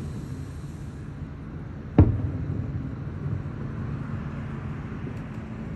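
A single aerial firework shell bursting with one sharp boom about two seconds in, over a steady low background rumble.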